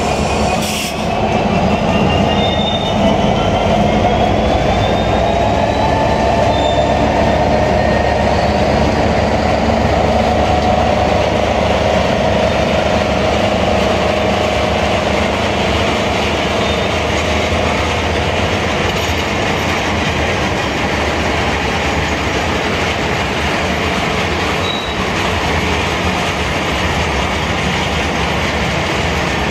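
Freight train of loaded flatcars rolling past at a steady speed: a continuous rumble of steel wheels on the rails, with thin, faint wheel squeals in the first several seconds.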